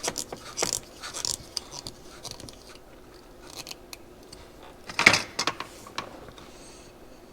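Small metal clicks and scrapes of carburetor parts being handled as the main jet is put back into a small engine's carburetor, with one louder clatter about five seconds in.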